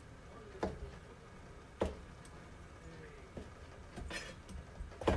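Kitchen knife slicing mushrooms on a plastic cutting board: separate knocks of the blade hitting the board, about one a second, the loudest near the end.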